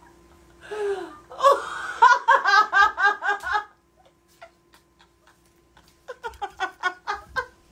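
Women laughing hard. A breathy outburst about a second in turns into a rapid run of laughs, and after a pause of about two seconds a second fit of laughter breaks out near the end.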